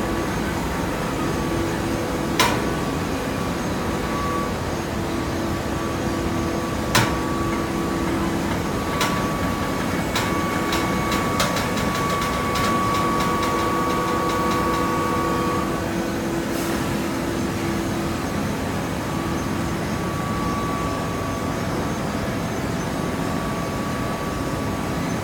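Hydraulic baler machine running with a steady hum from its motor and pump. There is a sharp clank about two seconds in and another about seven seconds in, followed by a quick run of ticks a few seconds later.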